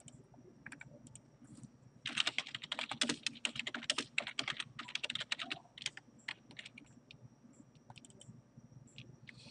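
Typing on a computer keyboard: a fast run of key clicks for about three seconds, then a few scattered single keystrokes.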